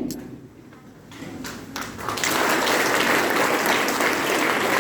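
Audience applauding: a few scattered claps about a second in, swelling into full, steady applause by about two seconds.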